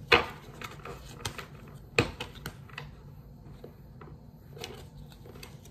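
A small deck of Lenormand cards being shuffled by hand: sharp taps and clicks of the cards, the loudest near the start and about two seconds in, then softer, scattered ticks.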